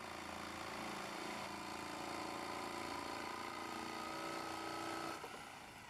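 Electric jigsaw running steadily as its blade cuts through 5/8-inch marine plywood, then dying away about five seconds in.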